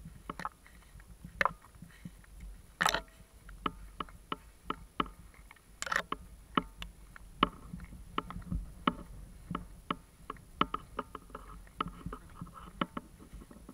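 Irregular light clicks and knocks, about two or three a second, over a low wind rumble, picked up by an action camera lying in the grass.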